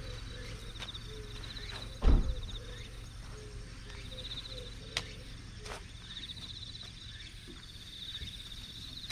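A spade digging and turning over soil, with one heavy thud about two seconds in as the blade is driven into the ground, and a few sharp clicks a few seconds later. Insects chirp in repeated pulsing trills behind it.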